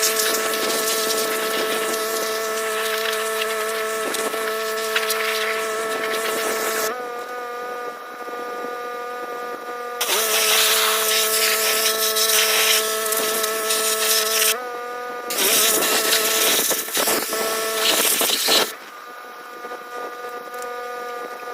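Pressure washer running with a steady motor-and-pump drone while the spray wand blasts in three long stretches of loud hissing spray. The drone's pitch steps up slightly whenever the spraying stops.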